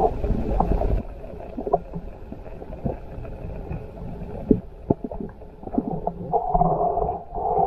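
Underwater sound through a waterproof camera in a river: a muffled low rumble of moving water with scattered sharp ticks and knocks. A muffled tone rises near the end.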